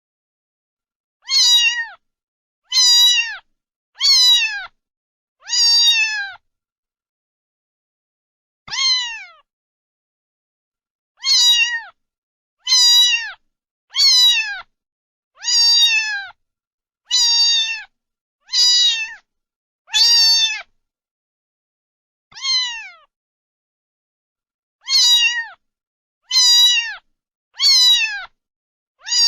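A cat meowing over and over: about seventeen short, high meows, each falling in pitch, mostly about one and a half seconds apart with a few longer pauses, and dead silence between them.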